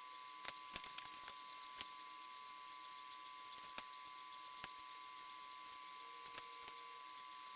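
Faint, irregular small clicks and ticks, a few a second, the sharpest one about six seconds in, over a steady faint electrical hum.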